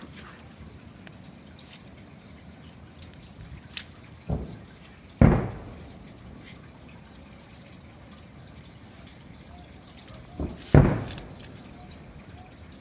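Distant fireworks shells bursting over the harbour: separate booms, the two loudest about five seconds and eleven seconds in, each with a smaller boom just before it, and each trailing off in a rolling echo.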